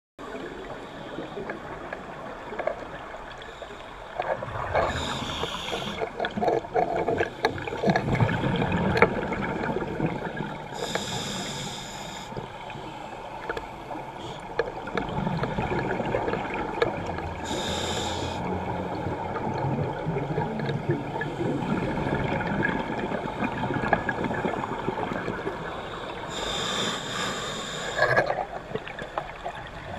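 Underwater sound of scuba diving: exhaled regulator bubbles burst out four times, roughly every six to eight seconds, over a steady rumble and hiss of water.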